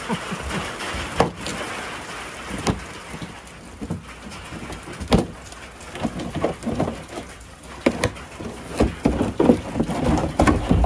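Plastic inner fender liner of a 2022 Nissan Frontier being pulled out of the front wheel well by hand: scattered clicks, knocks and scraping as it flexes against the tire and fender, coming thicker in the second half.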